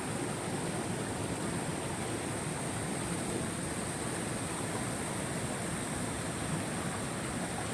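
Steady outdoor rushing noise, even throughout, with a constant high-pitched hiss above it.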